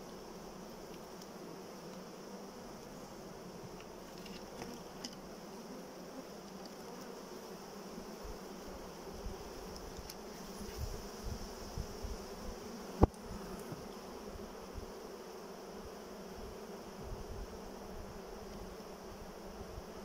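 Steady hum of a honey bee colony in an open wooden hive, its frames exposed. A few soft puffs from a bee smoker come around the middle, and one sharp knock about thirteen seconds in.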